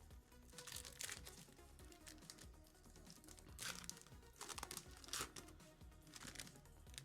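Trading card pack wrapper crinkling and tearing in about five short bursts as the pack is opened, over faint background music.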